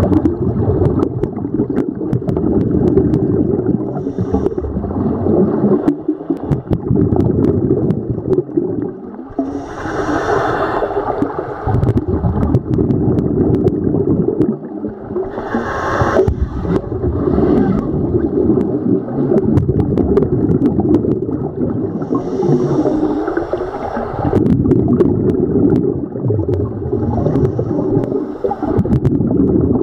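Scuba divers' exhaled air bubbling and gurgling, heard underwater, with a brighter rush of breath through the regulator a few times.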